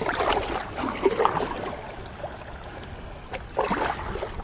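Kayak paddle dipping and splashing in shallow water: a few strokes near the start and another about three and a half seconds in.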